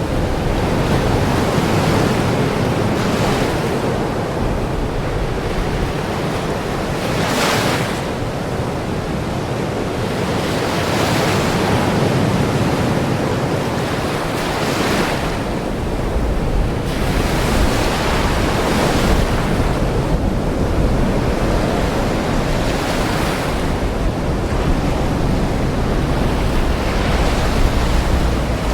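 Ocean surf, waves breaking and washing in continuously, with a louder surge about every four seconds. A low rumble grows stronger in the second half.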